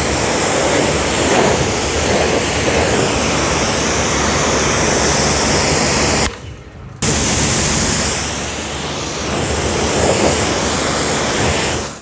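Btali 2200HPW commercial pressure washer spraying a car through its 40-degree fan nozzle: a loud, steady hiss of high-pressure water with the machine's low hum beneath. The spray cuts out for under a second about halfway through and stops just before the end.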